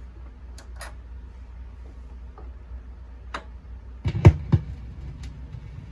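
A few small clicks of the record and turntable being handled. About four seconds in come three heavy thumps through the speaker as the stylus of an Audio-Technica AT-LP60X turntable sets down on the record, then a low rumble of the needle in the lead-in groove.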